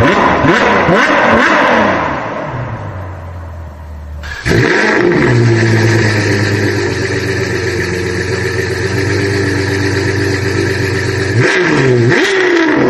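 A motor vehicle engine revving up and down. About four seconds in it cuts suddenly to the engine running at a steady speed, then it revs again near the end.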